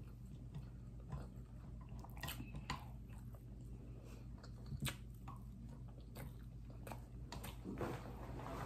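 A person chewing a mouthful of rice with alamang and pork belly, with faint wet mouth clicks and smacks scattered throughout.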